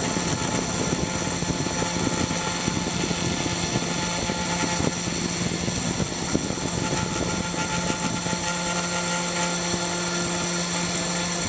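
775-type spindle motor of a CNC2418 router running at 10,000 rpm, its 1 mm two-flute end mill milling a circle in 2 mm aluminium plate in shallow 0.07 mm passes. A steady motor whine over the rough rasp of the cut, which eases about eight seconds in.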